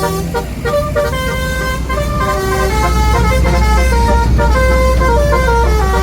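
Tour bus basuri horn playing a quick melody of short stepping notes, over the low rumble of the bus engine, which grows louder about two and a half seconds in.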